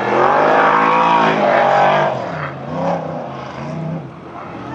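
Formula Offroad hillclimb buggy's engine at high revs under full load on a steep sand climb. The revs rise and fall several times as the throttle works, loudest in the first two seconds.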